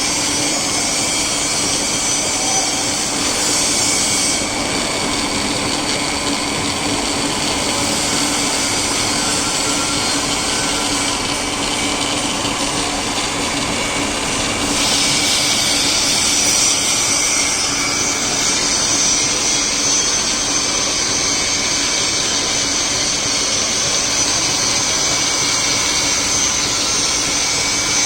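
Portable keyway milling machine running steadily, its motor giving a constant hum under a broad machining hiss; the high, hissing part of the sound changes character about four seconds in and again about halfway through.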